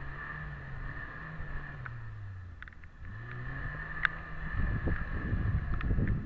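Suzuki Samurai LWB engine revving up and down as the truck crawls over rocks, with scattered short clicks and knocks. About two thirds of the way through it gets louder and rougher.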